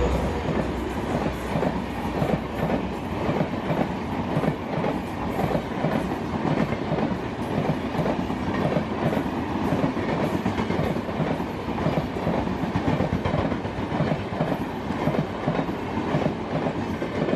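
Express train of LHB passenger coaches passing close by at speed, wheels clicking over the rail joints in a steady, rapid clickety-clack under a continuous rumble and rush of the moving rake.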